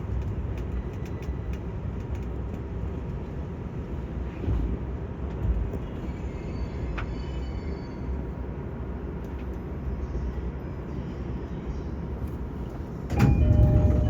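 Steady low rumble of a train, with a couple of brief swells in the middle. Near the end a louder sound with several steady tones sets in.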